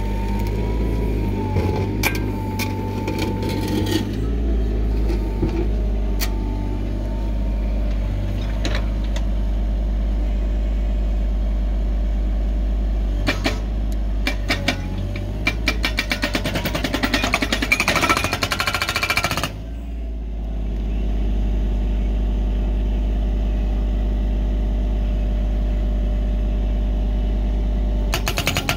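Mini excavator's engine running steadily while its OSA hydraulic breaker hammers at a buried boulder. It strikes in a fast run of blows for several seconds through the middle, then starts again near the end, with a few single knocks before.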